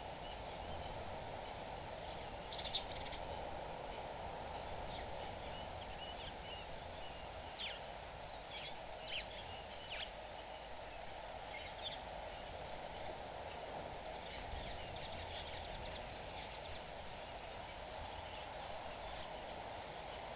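Outdoor ambience at a bush waterhole: scattered short, high bird calls come and go at irregular moments over a steady background hiss.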